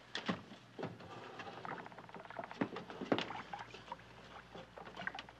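Scattered creaks, scrapes and wooden knocks of men hauling on rope tackle, with a few sharper knocks, the loudest about three seconds in.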